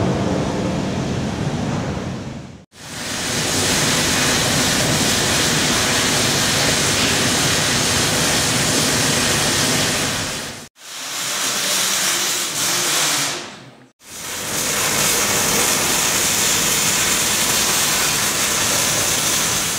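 Loud, steady hissing rush of industrial noise, cut off abruptly and resuming three times, about three, eleven and fourteen seconds in.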